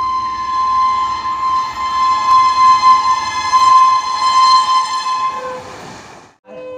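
Loud, long steady blast of a locomotive air horn, held for about five seconds over a low train rumble, then fading out. After a brief silence, a different, quieter steady tone starts near the end.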